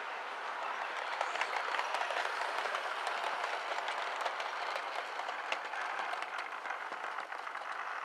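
Model HST train running along the layout track: a steady rattling whirr of wheels and motor dotted with small clicks, easing off slightly near the end as the train slows into the platform.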